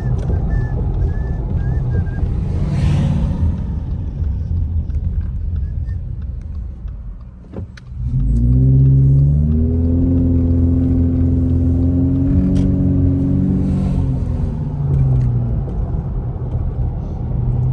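Car engine and road noise heard from inside the cabin while driving. About halfway through the car slows almost to a stop, then pulls away with the engine note rising and holding steady before easing off a few seconds later.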